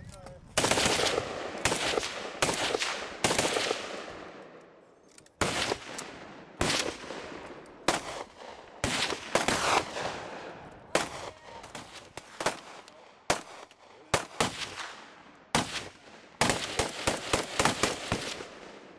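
Gunfire: a quick burst of automatic fire about half a second in, then single shots and short bursts at roughly one-second intervals, with a faster cluster of shots near the end. Each shot trails off in a fading echo.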